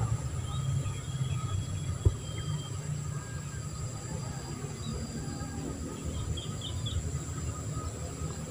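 Outdoor ambience: a steady low rumble with a high, steady insect buzz over it, one sharp click about two seconds in, and a few short bird chirps near the end.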